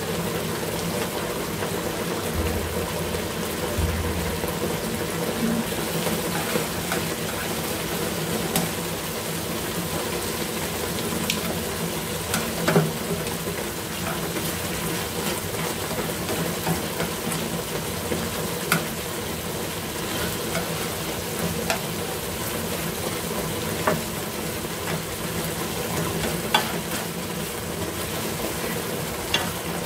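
A pan of sliced luffa and pork bubbling and sizzling in a sauce while being stirred with chopsticks, with a few sharp clicks of the chopsticks against the pan.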